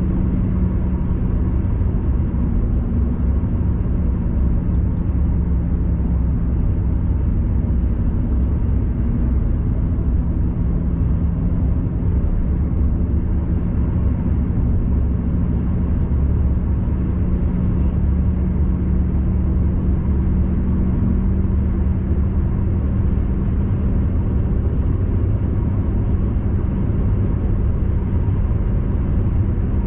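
Steady road and engine noise of a car cruising on an expressway, heard from inside the cabin: a low rumble with a steady hum.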